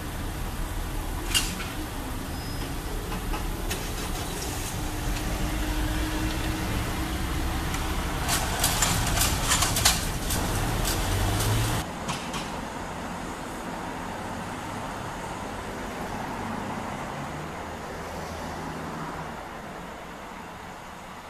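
Low engine rumble of the just-passed Class 166 diesel train and the cars waiting at the level crossing, with a cluster of clicks and rattles about eight to ten seconds in as the barriers go up. At about twelve seconds the sound drops suddenly to a quieter, fading hum and hiss of the train in the distance.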